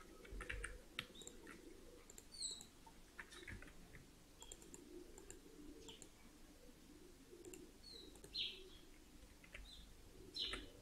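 Faint room tone with scattered soft computer-mouse clicks and a few brief, high chirps of small birds that fall in pitch.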